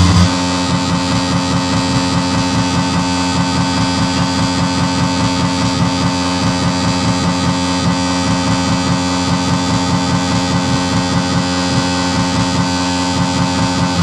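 Live electronic noise music from a laptop and tabletop electronics: several steady droning tones held over a fast, flickering low pulse.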